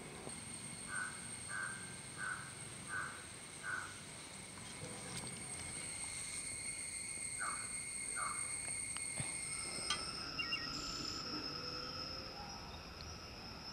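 Rural outdoor ambience: a steady high-pitched insect drone, with a bird calling in short repeated notes, five in quick succession in the first few seconds and two more later.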